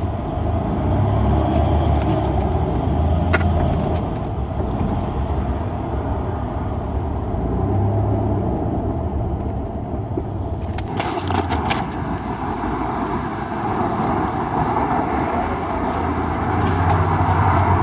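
Road vehicle driving: steady engine rumble and road noise, with louder, hissier road noise from about eleven seconds in.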